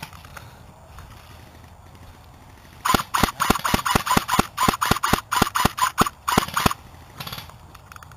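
Airsoft electric gun (JG Skorpion vz. 61 replica) firing rapid single shots, about fifteen in a row at roughly four a second, starting about three seconds in and stopping a little before the end.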